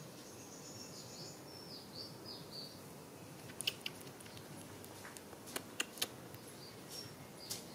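Outdoor ambience with a high, wavering chirping call for the first few seconds, then a scattering of sharp, soft clicks.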